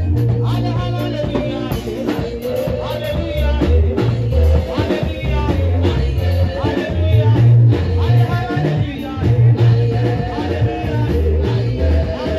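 Praise-and-worship gospel music: a woman singing into a microphone over amplified instrumental backing with a heavy, moving bass line.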